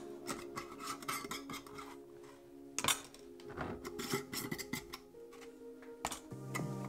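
Background music with steady held notes, over sharp clinks and scrapes of metal mason-jar lids and glass jars being handled, the loudest about three and four seconds in.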